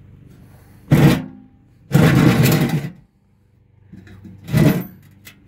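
The steel cutting deck of a Toro TimeCutter SS3225 riding mower is pulled out from under the mower frame. A sharp metal clunk comes about a second in, then about a second of scraping, then another short clunk near the end.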